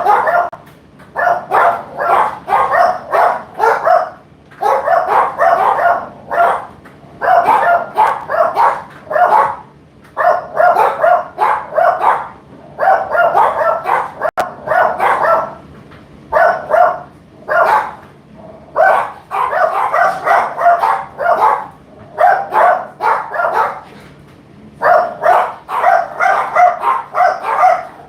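A dog barking over and over in quick volleys of several barks, a volley every two to three seconds, over a faint steady low hum.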